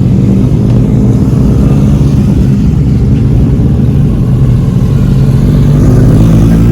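Kawasaki ZX-10R inline-four engine with an aftermarket Racefit exhaust, running loud at fairly steady revs, its pitch shifting a little near the end.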